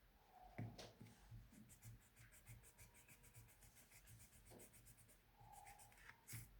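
Faint pen-or-marker-on-paper scribbling: quick repeated scratching strokes, several a second, with a few soft taps on the table.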